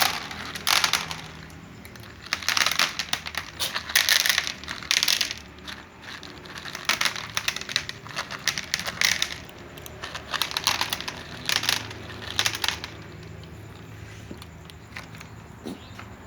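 Dry cat food crunching and rattling in about half a dozen bursts of a second or so each, stopping near the end.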